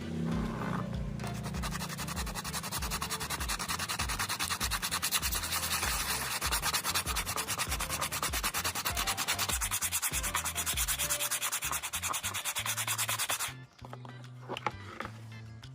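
Sandpaper scraping over a plastic car bumper in quick, steady strokes during the repair, stopping abruptly near the end.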